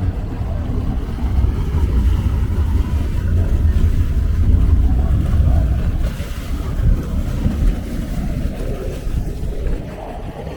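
Motorboat engine giving a low rumble as the boat comes in, growing louder to about the middle and easing off near the end, over the wash of water.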